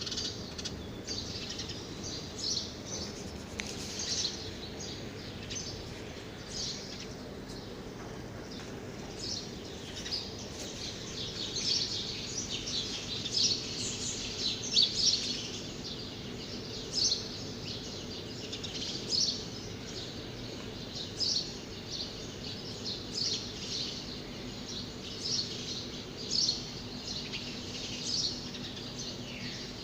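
Birds chirping, many short high chirps one after another, over a steady low hum.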